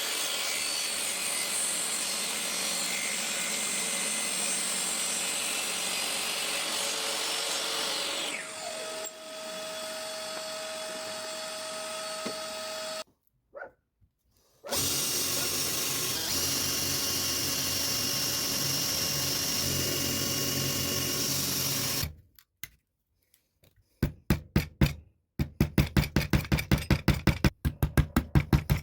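A power tool running on wood in two long stretches, each cut off abruptly, with a steady whine coming in during the first. Near the end, quick back-and-forth rubbing strokes of sandpaper on wood, about five a second.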